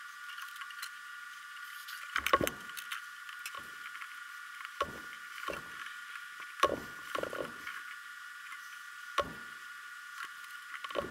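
Handling sounds of braiding a three-strand cord hat band by hand: scattered soft knocks and rubs of hands and cord against a wooden board, about eight or nine in all, the sharpest about two, seven and nine seconds in, over a steady high hiss.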